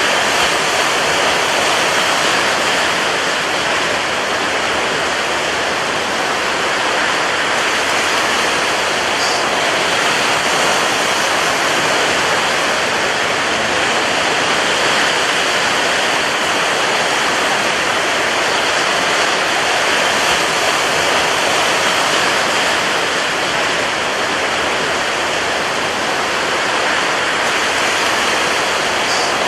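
Rough sea and strong wind: a loud, steady rushing noise with no separate wave crashes standing out.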